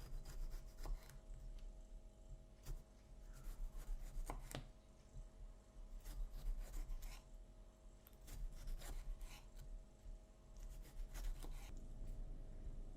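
Knife chopping on a cutting board in irregular short runs of strokes with pauses between them, over a faint steady hum.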